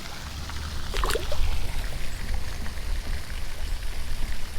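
Pond fountain splashing steadily, with a low rumble of wind on the microphone and one short sharp sound about a second in.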